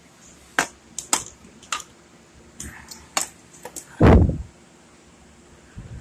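Handling noise from a steel exhaust pipe being test-fitted against a motorized bicycle's engine and frame: a string of short light metal clicks and taps, then one heavier low thump about four seconds in.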